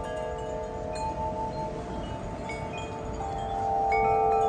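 Wind chimes ringing in the wind, with several metal tones overlapping and new strikes sounding every so often; the chimes get louder near the end as a gust picks up. Low wind noise underneath.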